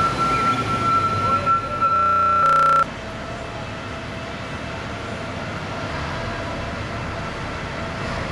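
Diesel semi-truck engine running as it tows a trailer, with a steady high whine over the rumble. A short buzzing glitch follows about two seconds in, then an abrupt cut to a quieter steady hum with a faint tone.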